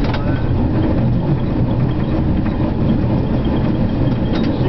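Tram running along street track, heard from inside the driver's cab: a steady low rumble from its motors and wheels on the rails. A few light clicks come through, one at the start and a couple near the end.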